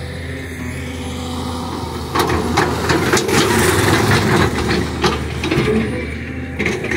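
Heavy earthmoving machinery running: a steady low engine hum. From about two seconds in to about six it gets louder, with rough clattering and scraping.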